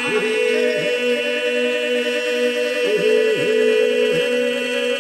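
Unaccompanied group singing in Albanian folk style: voices hold long sustained notes over a steady drone, with small ornamental dips in pitch.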